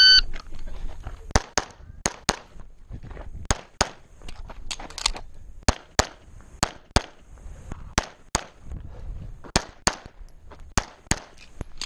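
A short electronic shot-timer start beep, then a string of rapid handgun shots, about twenty, mostly in quick pairs, as the shooter fires a USPSA Production stage.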